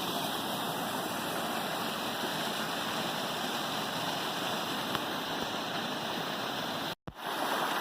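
Steady rush of stream water spilling over the top of a waterfall. The sound drops out abruptly for a split second about seven seconds in, then carries on.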